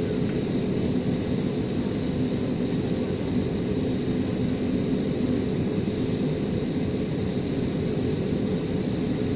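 Airbus A320neo's CFM LEAP-1A turbofan engines at idle before the takeoff spool-up, heard inside the cabin by the wing: a steady low hum with a thin, steady high whine on top.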